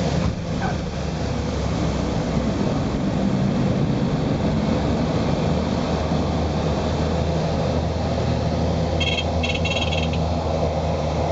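Small airplane's engine and propeller drone heard from inside the cabin on final approach to landing, steady throughout. About nine seconds in, a quick run of about five short high-pitched beeps sounds over roughly a second.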